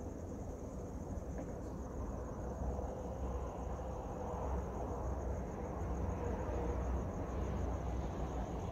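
Night insects, crickets by their sound, chirring in a steady high-pitched pulsing drone over a low rumble that swells slightly in the middle.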